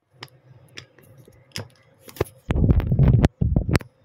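Handling noise from the phone being moved: a few light clicks and knocks, then two loud, low, rubbing scrapes on the microphone near the end.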